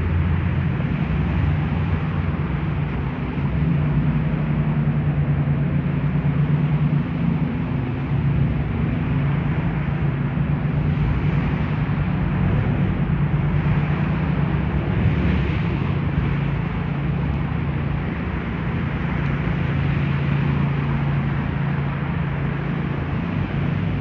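City street traffic: vehicle engines running with a steady low hum under the noise of passing cars, with a louder swell about fifteen seconds in.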